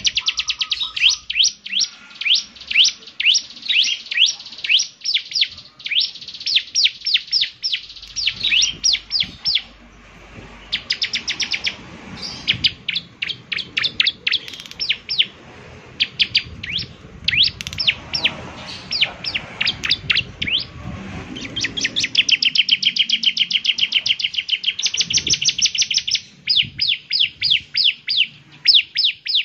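Bar-winged prinia (ciblek) singing: long, fast trains of sharp, high chip notes that each sweep downward, repeated several times a second, breaking into a quicker, denser buzzing run about two thirds of the way through.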